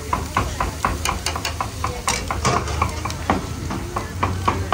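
Metal spatula chopping and scraping meat on a steel flat-top griddle: a quick, steady run of sharp clinks, about four or five a second.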